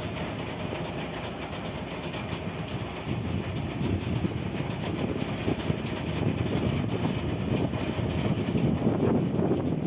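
Fishing boat's engine running steadily under way, a rapid even chugging with wind and water noise over it, growing louder toward the end.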